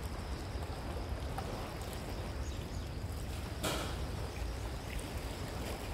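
Steady rush of sea waves and wind on the microphone, with one short, louder rushing burst about three and a half seconds in.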